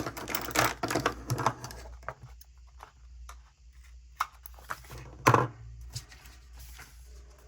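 Paper stickers and planner pages being handled on a desk: crinkly rustles and light clicks in the first two seconds, then one sharper tap about five seconds in.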